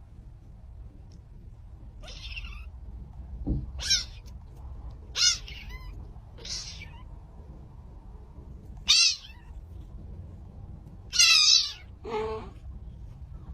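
A cat meowing, about seven short, high-pitched meows spaced a second or two apart. The longest and loudest comes near the end, and a low thump falls just before the second meow.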